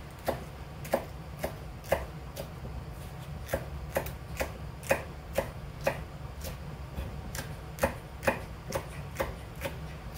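Knife chopping on a cutting board: sharp knocks about twice a second, with a short break about two and a half seconds in, over a steady low hum.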